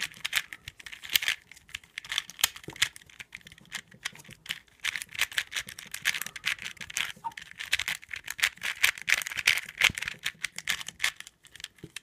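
Dayan Zhanchi 2x2 speed cube turned fast during a timed solve: a rapid, uneven run of plastic clicks and clacks as the layers snap round, in quick flurries with brief gaps.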